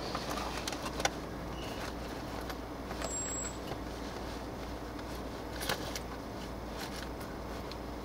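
Car driving up a mountain road: a steady low rumble of engine and road noise, with a few sharp clicks and light rattles about a second, three seconds and nearly six seconds in.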